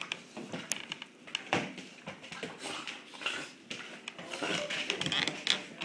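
Two dogs tussling in play, with irregular clicks, knocks and scuffling, and dog noises mixed in.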